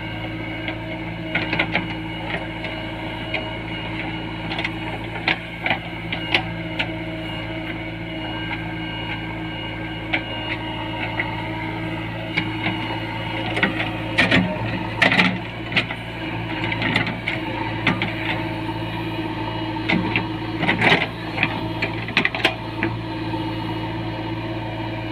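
JCB 3DX backhoe loader's diesel engine running steadily while digging, with clusters of knocks and clanks from the working gear a few times.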